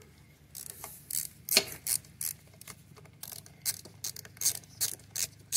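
Socket ratchet clicking in short, uneven strokes as a small screw is turned in, starting about half a second in.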